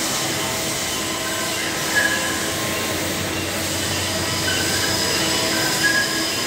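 Haas vertical machining center running a job under flood coolant: a steady wash of coolant spray and machine noise, with a few brief high squeals about two seconds in and again in the second half.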